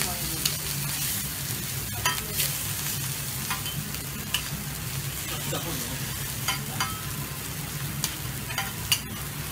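Kobe beef steak sizzling steadily on a teppanyaki steel griddle, with the chef's metal knife and spatula clicking and scraping against the hot plate now and then as he cuts and turns the meat. A steady low hum runs underneath.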